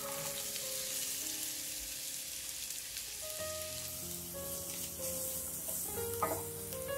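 Chopped onion sizzling steadily in olive oil in a stainless steel pot, with a few light ticks near the end as garlic pieces drop in. Soft background music plays alongside.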